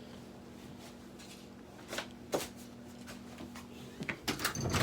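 Microwave oven running with a low steady hum, which stops about four seconds in. There are two light clicks about two seconds in, and a cluster of knocks and rattles near the end.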